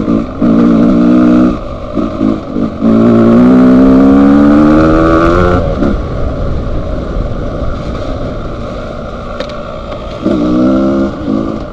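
Dual-sport motorcycle engine revving in bursts. There is one long climb in revs about three seconds in, then it eases off to a lower, rougher running for several seconds, with another short burst near the end.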